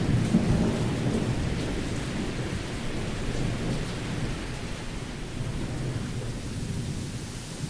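A low rumbling noise with a fainter hiss above it, slowly fading.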